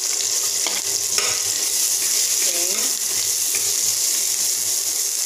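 Chopped garlic, shallots and ginger frying in a stainless steel pot with a steady sizzle. A metal ladle stirs them and knocks against the pot a couple of times early on.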